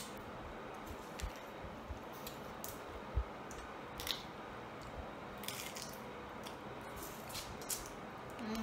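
Eating a seafood boil by hand: scattered small cracks and clicks as crayfish and crab shells are pulled apart and bitten, with soft squishing of the meat.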